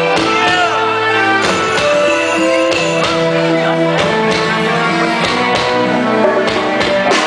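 Live reggae band playing an instrumental passage: guitar and drums over steady held chords.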